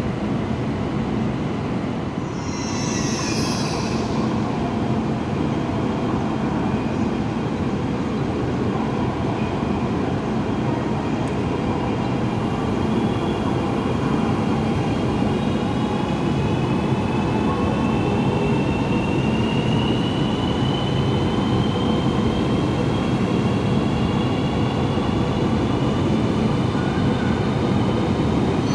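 MTR Vibrant Express high-speed train, a CRH380A-type electric multiple unit, pulling slowly out of the platform over a steady rumble. There is a brief hiss about two seconds in. From about halfway through, a whine of several tones rises slowly in pitch as the train gathers speed.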